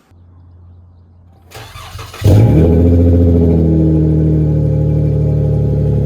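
2011 Dodge Charger's 3.6L Pentastar V6 starting up through a Flowmaster Super 44 muffler, with the rear mufflers deleted and straight pipes behind it. After a brief crank it catches suddenly, about two seconds in, with a short flare of revs that falls back, then settles into a loud, steady idle.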